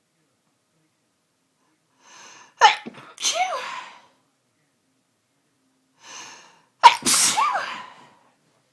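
A woman sneezing twice, about four seconds apart, each sneeze preceded by a short breath in. Part of a sneezing fit.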